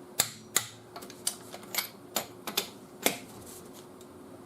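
Click-type torque wrench working wheel lug nuts at 90 ft-lb: a run of about ten sharp, irregularly spaced metallic clicks as the wrench ratchets and breaks over at its set torque.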